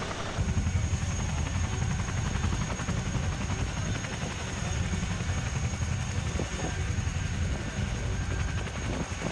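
RAF helicopter running, a fast low rotor beat under a steady high turbine whine. The sound changes abruptly just after the start.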